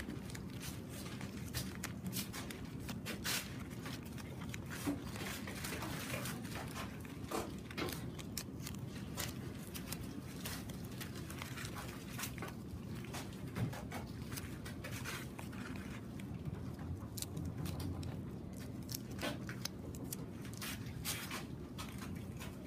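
Crumpled newspaper crinkling and rustling as hands shape it and press it onto a taped paper form, with many scattered sharp crackles over a steady low room hum.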